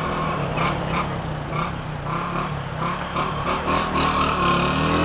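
Honda CG Fan 125's single-cylinder four-stroke engine running at low revs in slow traffic, over road and traffic noise; near the end the engine note starts to rise as it accelerates.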